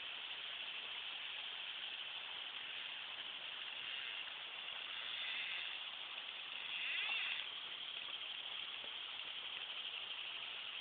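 Steady hiss of a flowing river's current, with a brief louder swell about seven seconds in.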